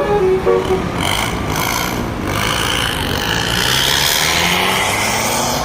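A bus's musical telolet horn plays the last notes of its tune and stops within the first second, then the bus passes at speed with a rush of tyre and engine noise that swells and eases.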